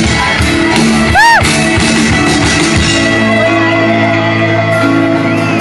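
Live rock band playing: drum kit, electric guitars and singing, loud and steady. About a second in, a short high cry rises and falls in pitch over the music.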